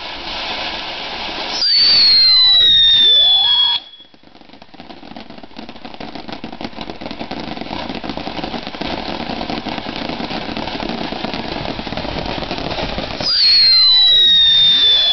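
Ground firework going off: a shrill whistle, falling slightly in pitch, for about two seconds, then a steady hiss of burning sparks that slowly grows louder, then a second loud whistle near the end.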